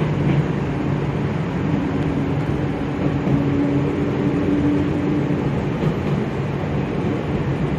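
Chichibu Railway electric train running along the track, heard from inside the front car: a steady rumble of wheels on rail and running gear, with a steady tone sounding for a few seconds in the middle.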